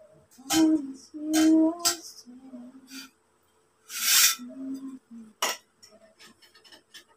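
Metal poles of a telescopic clothes rack clinking and knocking as they are handled and fitted together. There are several sharp clanks, the loudest early on and just after five seconds, and a longer scraping rattle about four seconds in.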